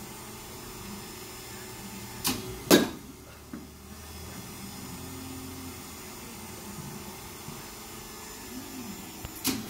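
Baseball bat hitting balls in an indoor batting cage: two sharp cracks about half a second apart a little over two seconds in, the second louder, and another crack near the end. A steady low hum sits underneath.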